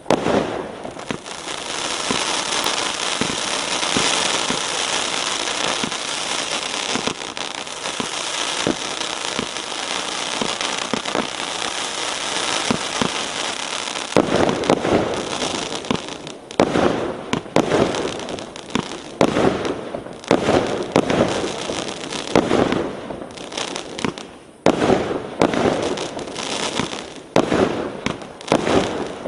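Multi-shot 1-inch fireworks cake firing: for about the first half a dense, continuous crackling of many small pops, then separate shots and bursts about once a second.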